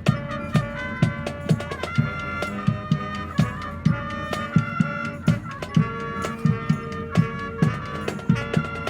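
High school marching band playing: brass holding sustained notes over a steady drum beat of about two hits a second.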